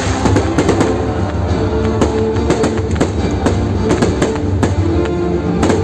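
Music with held notes plays while fireworks go off, a sharp bang every half second to a second, unevenly spaced, cutting through it.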